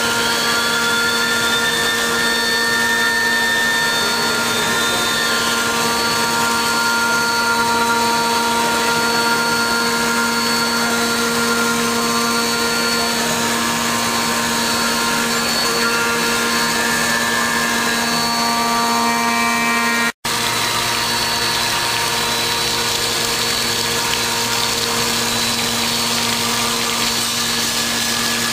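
5-axis CNC machine running a cut: a steady whine of several held tones over a hiss. The sound drops out for an instant about two-thirds of the way through, and after that a low hum joins in.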